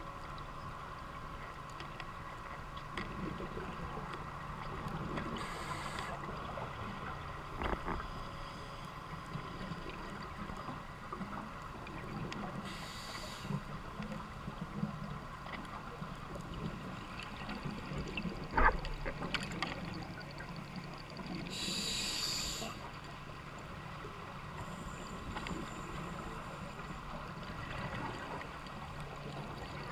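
Muffled underwater sound through a GoPro housing: a steady low hum and hiss, broken about every eight seconds by a short hissing burst of bubbles, typical of a scuba diver exhaling through a regulator. Two sharp knocks, about eight and nineteen seconds in.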